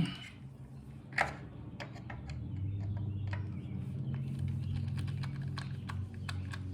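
Small clicks and ticks of a hand tool working at a very tight oil level screw on an outboard's lower unit, with louder knocks right at the start and about a second in. A low steady hum comes in about two and a half seconds in.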